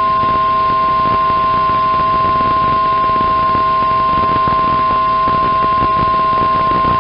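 Weather Radio Canada's 1050 Hz warning alarm tone: one long steady beep over a hiss of radio static. It is the signal that a severe weather warning message follows.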